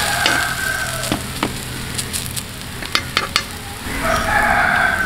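A corn-flour roti sizzling on a hot flat iron tawa, with sharp metallic clicks as a fork and a steel spatula tap and scrape the griddle. A rooster crows near the end.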